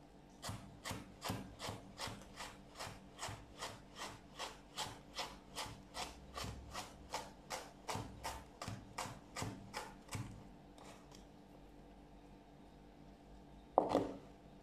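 Kitchen knife cutting a carrot into thin strips on a cutting board, about two to three strokes a second for about ten seconds before it stops. One louder knock near the end.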